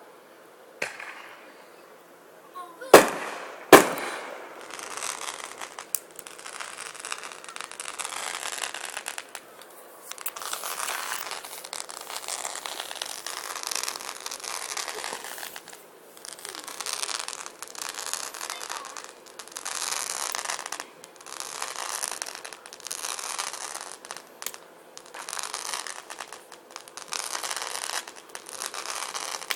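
Fireworks: two sharp bangs about three seconds in, followed by long stretches of hissing, crackling bursts that come and go every second or two.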